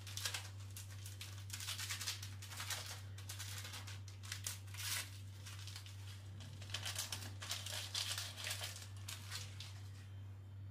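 A small packet of leavening rustling and crinkling as it is torn open and handled, in short, irregular crackles.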